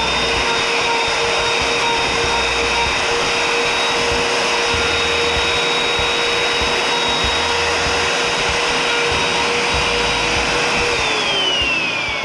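Bosch plunge router running steadily with a high motor whine as it routes a slot in a wooden bed board through a template. About a second before the end it is switched off, and the whine falls in pitch as the motor spins down.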